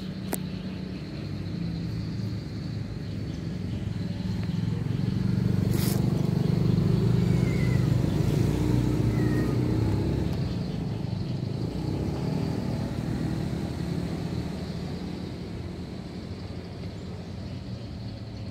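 Engine of a passing motor vehicle, growing louder over several seconds, at its loudest around the middle, then fading away. A sharp click just after the start.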